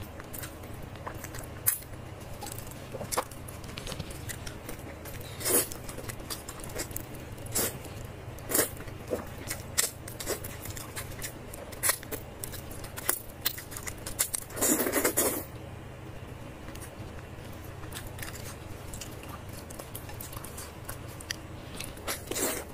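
Close-miked eating sounds: scattered sharp wet mouth clicks, bites and chewing crunches at uneven intervals over a steady low hum, with one longer noisy sound of about a second roughly fifteen seconds in.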